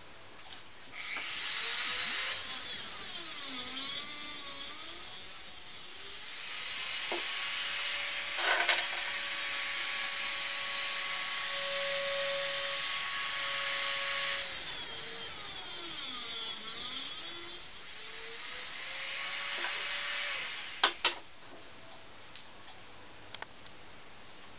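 Handheld rotary tool with a small cut-off disc running at high speed for about twenty seconds: it spins up about a second in, dips in pitch twice as it bears on the work, then winds down. A few light clicks follow.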